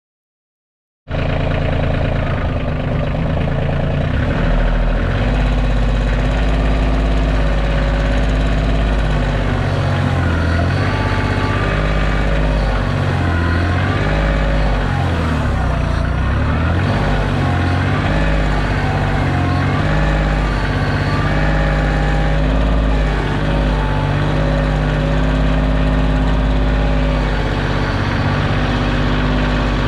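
Kioti compact tractor's diesel engine running while the backhoe digs, cutting in suddenly about a second in. Its pitch dips and wavers through the middle stretch as the load changes, then evens out.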